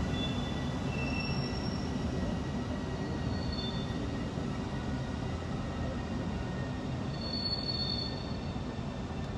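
Freight train of tank wagons hauled by a DB Class 151 electric locomotive rolling slowly past with a steady low rumble. Brief high-pitched wheel squeals come several times, the longest about seven and a half seconds in.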